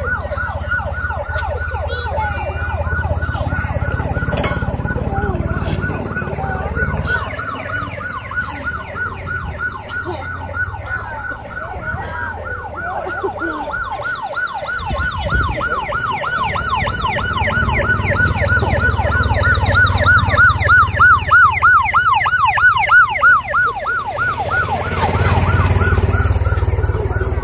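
Electronic siren on a miniature fire truck, yelping in a fast, steadily repeating rise and fall, about four sweeps a second. It grows fainter as the truck drives off, then louder as it comes close again in the last third.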